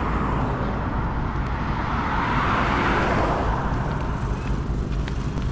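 A vehicle passing on the road, growing louder to a peak about two and a half seconds in and then fading away, over a steady low rumble.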